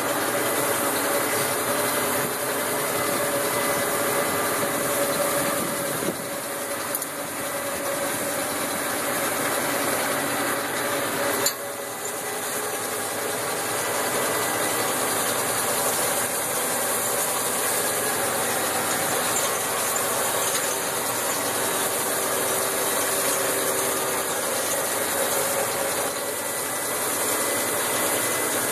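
Massey Ferguson 5455 tractor's diesel engine running steadily, heard from inside the cab, with a continuous mechanical rattle. There are two sharp knocks, about six and eleven seconds in.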